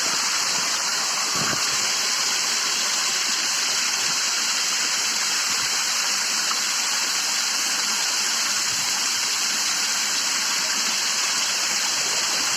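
Monsoon waterfall on a hillside, the water rushing in a steady, unbroken hiss.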